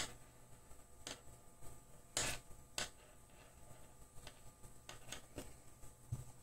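Faint, scattered clicks and rustles of a crochet hook and hands working chenille yarn, about seven sharp ticks, the loudest a little over two seconds in.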